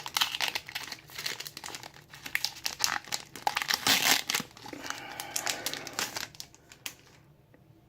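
Foil wrapper of a Pokémon booster pack crinkling as it is torn open and handled, a dense crackle that stops about six seconds in.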